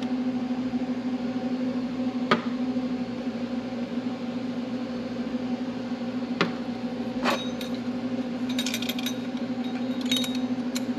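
Oiled pod air filters being handled and flipped over: a few sharp knocks and then a run of light metallic clinks, over a steady low hum.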